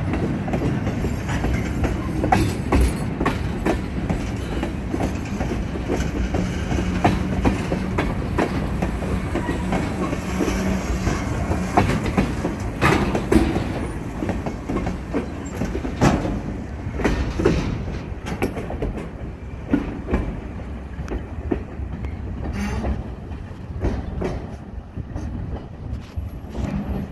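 Freight train cars rolling past up close: a steady rumble of steel wheels on the rails with sharp clicks and clacks over the rail joints. Near the end the last car passes and the sound begins to fade as it moves away.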